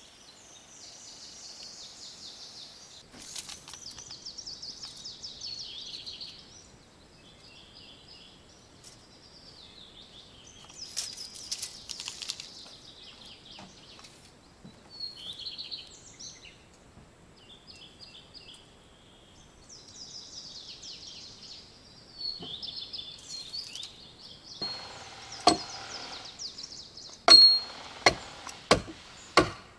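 Small birds singing in short bursts of high chirps and trills. Near the end comes a run of about five sharp, loud knocks of wood being struck, chopping or hitting.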